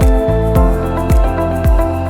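Background music with a steady electronic beat: a deep kick drum about twice a second under sustained synth tones.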